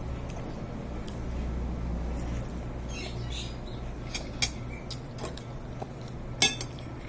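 Eating sounds: scattered short clicks and taps from mouth smacks and utensils, with a cluster about three seconds in and a sharper click a little past six seconds, over a steady low hum.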